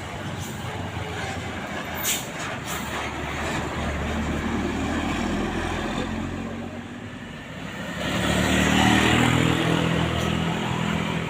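Road traffic of heavy vehicles passing close by, their engines running over tyre and road noise. A couple of sharp clicks come about two seconds in, and a large vehicle swells much louder about eight seconds in as it passes.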